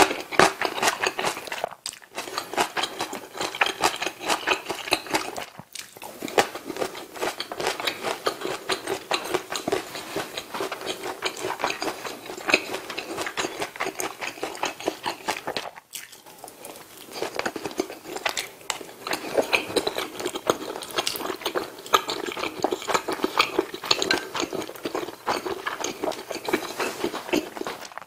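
Close-miked chewing of mouthfuls of rice and Korean side dishes: dense, rapid wet mouth clicks with a few brief pauses, and chopsticks and a spoon clinking against the dishes now and then.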